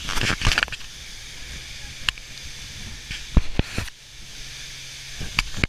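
A waterfall pouring down close to a tour catamaran: a steady rushing hiss of falling water and spray over the boat's low engine hum. Loud crackling buffets hit the microphone in the first second, and there are a few sharp knocks later on.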